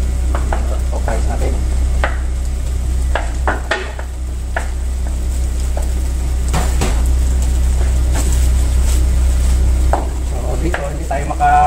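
Cooked rice scraped from a metal container into a frying pan of sizzling mixed vegetables and egg, then stirred with a wooden spoon: irregular scrapes and knocks against the pan over a light sizzle. A steady low hum runs underneath.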